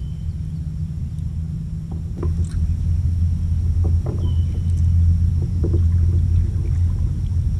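Kayak paddle strokes, the blade dipping and splashing in the water a few times, over a steady low rumble; a short high whistle repeats a few times.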